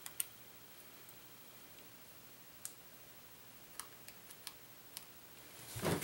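Faint small clicks and taps, scattered, with a quick run of them about four seconds in: a small Torx screwdriver and tiny case screws against a phone's plastic back case as the screws are taken out.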